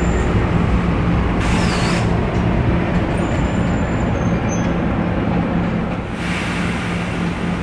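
NJ Transit bilevel commuter coaches rolling along the rails: a steady rumble of wheels with a constant low hum. A short hiss comes about one and a half seconds in.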